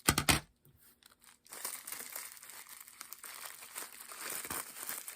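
Plastic packing material crinkling and being pulled apart as a wrapped item is unwrapped by hand: a short loud rustle at the start, a pause of about a second, then steady crinkling.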